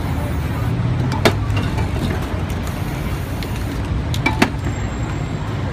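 Steady low rumble of city street traffic, with a few sharp clicks: one about a second in and a quick pair near the end.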